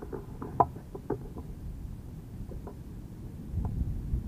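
Strong wind buffeting the microphone as a steady low rumble, with a few faint, short clicks scattered through, most in the first second and a half.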